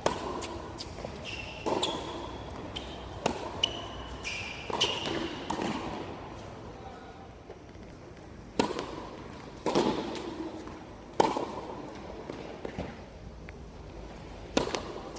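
Tennis balls struck by rackets and bouncing on a hard court. Quick pops come close together in the first few seconds, then a few louder, spaced single hits, each ringing briefly under the roof.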